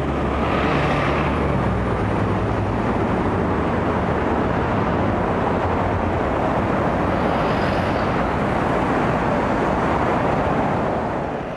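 Busy city street traffic: buses and cars going by, with a steady low engine hum in the first few seconds. The sound fades out near the end.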